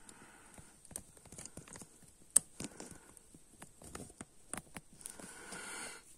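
Faint, scattered small clicks and taps of hands and a handheld phone being moved close over an opened motorcycle engine, with one sharper click about two and a half seconds in and a soft rustle near the end.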